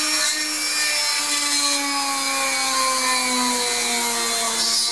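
Small electric rotary tool in a drill-press stand running at speed as its bit bores into a cured polymer clay bead: a steady whine that sags slightly in pitch under the load.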